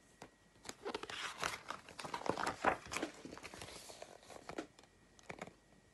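A picture book's paper page being turned and handled: about four seconds of rustling and crinkling, with a few light clicks near the end.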